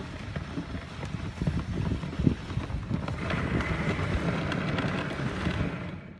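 Dog sled moving over snow: the runners scrape and the wooden sled rattles with small irregular knocks, over wind rumbling on the microphone. A brighter scraping hiss joins about three seconds in.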